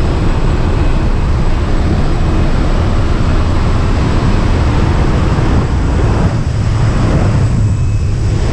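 Loud, steady rush of engine and propeller noise mixed with wind blasting through the open door of a small jump plane in flight, buffeting the microphone.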